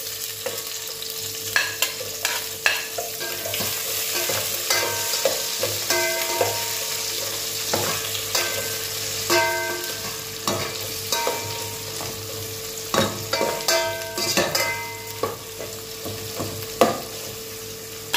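Sliced onions sizzling in hot cooking oil in a non-stick pot while a metal spoon stirs them, clinking and scraping against the pot. Many of the taps leave a short ring.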